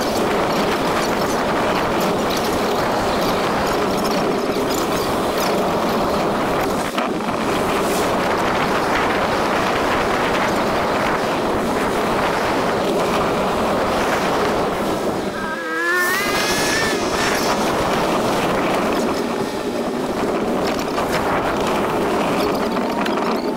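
A motor vehicle running on the move, with a steady loud rush of engine and wind noise. About two-thirds of the way through, a pitched sound dips and then quickly climbs.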